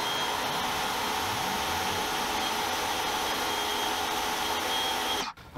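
Greenworks 1700 PSI electric pressure washer running with a 2.5 nozzle at about 1100 PSI, its jet spraying into a lidded plastic bucket: a steady hissing rush that cuts off suddenly near the end.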